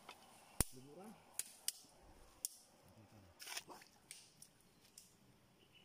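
Dry sticks cracking and snapping as they are gathered and broken by hand: about five sharp cracks over three and a half seconds, the loudest about half a second in.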